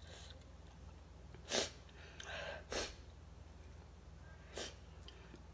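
Short sniffs through the nose, four in a few seconds, the first the loudest: a person sniffing from the chili heat of a spicy mango salad.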